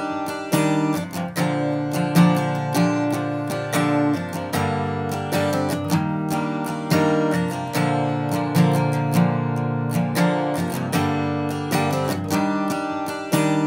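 Background music of strummed acoustic guitar chords in a steady rhythm.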